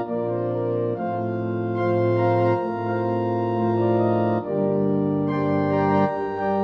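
Slow instrumental music of sustained held chords, the harmony changing about every one and a half to two seconds.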